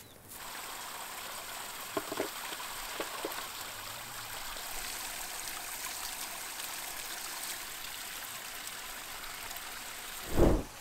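Steady rush of flowing water, with a few light knocks about two and three seconds in and a short, loud low thump near the end.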